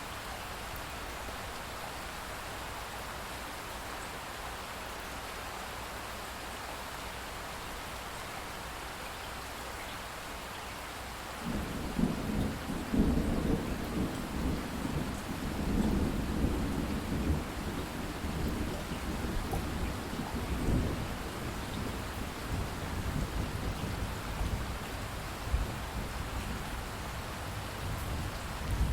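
Steady rain falling. About eleven seconds in, thunder breaks in suddenly and rumbles on through the rest, swelling and fading several times over the rain.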